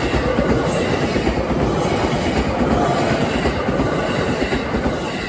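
Yokohama Line train rolling over the rail joints at a level crossing, its wheels clacking rapidly and without a break.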